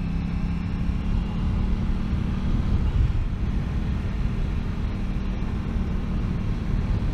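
Aprilia RS660's parallel-twin engine running steadily while riding, its even low note fading after about two and a half seconds into a rougher low rumble.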